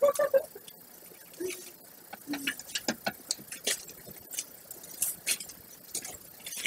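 A metal hand tool scraping and clicking against a door's lock and frame as it is pried at in a forced-entry attempt: an irregular run of sharp scratches and ticks, several a second, starting a couple of seconds in. A brief mumbled voice comes at the start.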